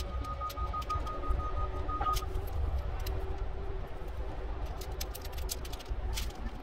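Shock-corded tent pole sections clicking and rattling as they are pulled apart and folded, over a steady low rumble.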